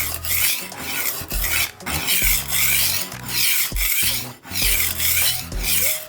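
HORL rolling knife sharpener's abrasive disc rolled back and forth along a knife's edge: a steady run of rasping, grinding strokes, roughly one every 0.7 seconds.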